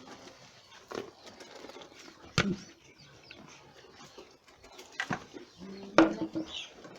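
Boer goats at their feed: a few sharp knocks and clatters spaced irregularly, with a short low-pitched call just before the last and loudest knock.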